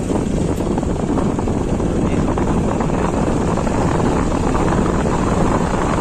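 Steady wind rush buffeting the microphone, mixed with the running noise of the vehicle carrying it along a road.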